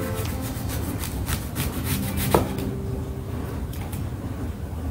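Chef's knife slicing thin rounds off a whole apple on a wooden cutting board: the blade rubbing through the flesh, with short taps and a sharper knock about two seconds in.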